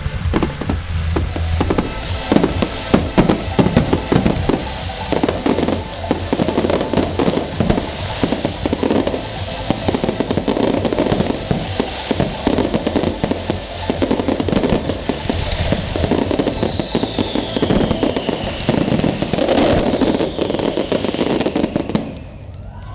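Fireworks display: rapid, irregular bangs and crackles of bursting shells over music, with one falling whistle about two-thirds of the way through. The bangs stop shortly before the end.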